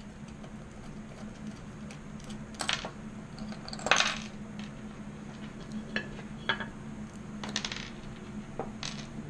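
Small metal hardware (washers and bolts) clinking against each other and the wooden bench as hands sort through it, a handful of separate clinks with the loudest about four seconds in. A steady low hum runs underneath.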